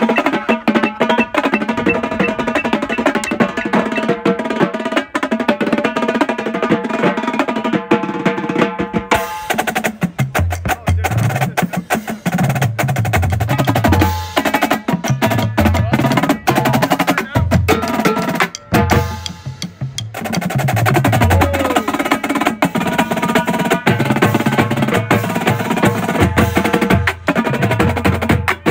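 Marching drumline playing a drum break: snare drums play fast accented rudimental patterns and rolls, and tuned bass drums sound low pitched notes from about ten seconds in. There is a brief drop in the playing about two-thirds of the way through.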